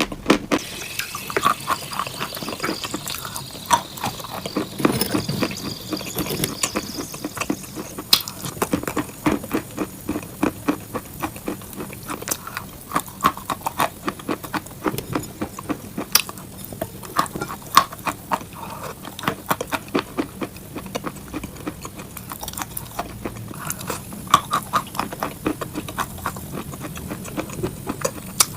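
ASMR fake-eating crunch sounds of crunchy cupcakes: a dense, irregular run of crisp crackles and clicks, several a second, with sharper snaps now and then.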